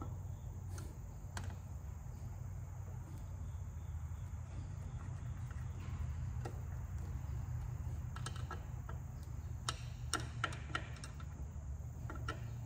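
Hand screwdriver driving small screws into a Uconnect touchscreen assembly: scattered light clicks and ticks, several close together around ten seconds in, over a steady low hum.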